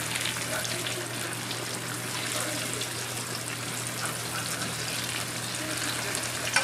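Battered bread sandwiches deep-frying in a wok of hot oil, with a steady sizzling and crackling as a wire skimmer stirs them.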